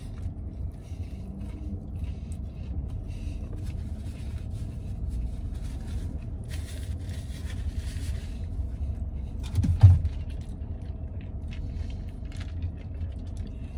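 Steady low rumble of a vehicle heard inside a car's cab, with scattered quiet rustling and handling noises as food is eaten, and one thump just under ten seconds in.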